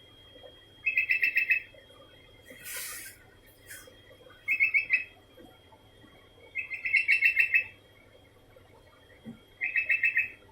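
Sooty-headed bulbul (kutilang) calling: four short bursts of rapid repeated notes a few seconds apart. A brief hiss comes about three seconds in.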